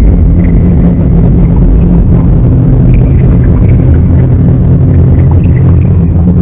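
Loud, steady low rumble.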